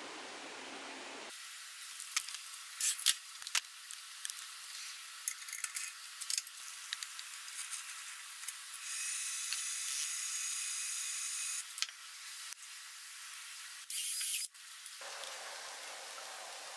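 Light metal clicks and ticks as a screw chuck is set into a four-jaw wood-lathe chuck, with a steady rasping stretch about nine seconds in as the chuck is turned with its key, all over a thin hiss. A short, louder scrape follows near the end.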